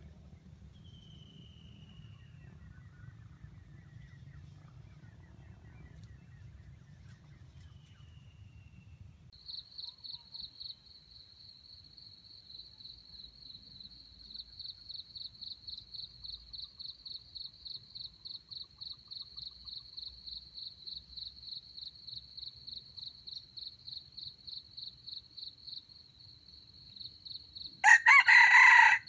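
A red junglefowl rooster crows once near the end, a loud, short crow of about a second. Before it, a steady high-pitched pulsing call repeats about two to three times a second, with a couple of faint high whistles earlier.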